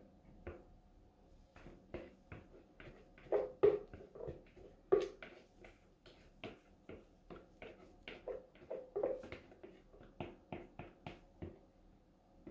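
A spatula scraping and knocking inside a mixing bowl as thick cold-process soap batter is scraped out into a loaf mould: a run of short, irregular soft knocks and scrapes, loudest a few seconds in.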